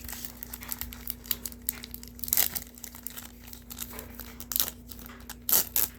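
A 1990 football trading card pack wrapper being torn open and crinkled by hand: a run of crackling with louder crackles about two, four and a half, and five and a half seconds in.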